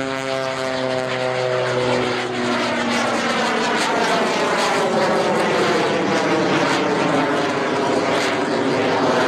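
Jack Link's Screamin' Sasquatch Jet Waco, a biplane with a Pratt & Whitney R-985 radial engine and an added jet engine, flying past close overhead. For the first couple of seconds a pitched engine drone falls slightly and fades. Then a loud rushing engine noise swells as the plane comes in close, with a sweeping, phasing quality, and holds to the end.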